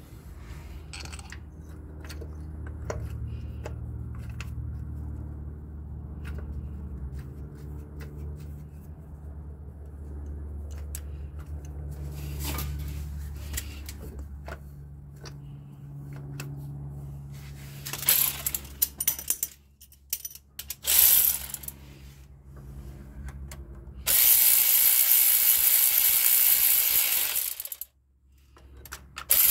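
A hand ratchet clicking as bolts are run in during reassembly, with a steady low hum throughout. About three-quarters of the way through, a loud, even rushing noise lasts about four seconds and then cuts off.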